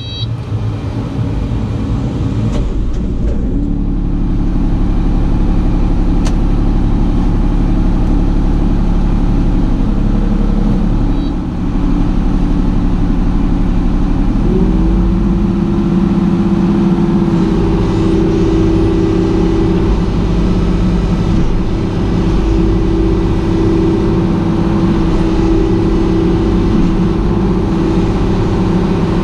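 Kubota U-35-4 mini excavator's diesel engine running steadily, stepping up to a higher, louder pitch about halfway through.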